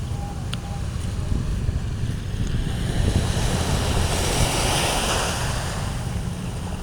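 Ocean surf: a wave breaking and washing in, its hiss building to a peak about four seconds in and then easing off, over a steady low rumble of wind on the microphone.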